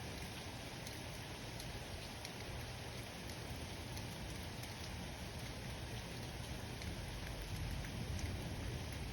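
Steady rain of a thunderstorm falling, with faint scattered drop ticks and a low rumble underneath that grows near the end.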